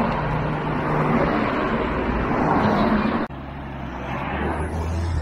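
Cars and a motorcycle of a race's vehicle convoy driving past, a steady hum with road noise. About three seconds in the sound drops abruptly and carries on quieter.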